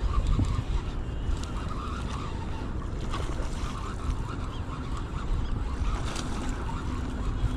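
Wind buffeting the microphone outdoors: a steady, uneven low rumble with no clear events.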